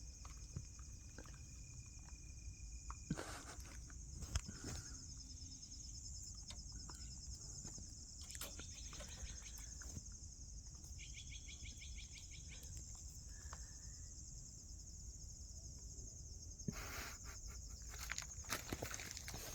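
Crickets chirping: a steady high-pitched trill, with a few short pulsed calls and some light clicks and rustles mixed in.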